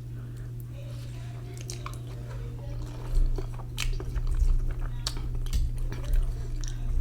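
Close-miked chewing and mouth sounds of a person eating ramen noodles, with sharp clicks and low bumps that become louder and more frequent about three seconds in, over a steady low hum.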